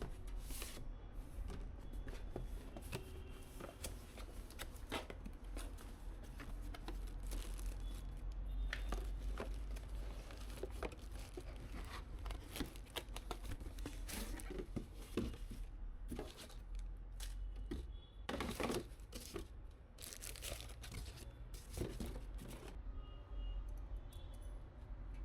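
Plastic wrapping being torn and crinkled by hand, with scattered small clicks and knocks of parts being handled; a couple of longer tears come in the last third.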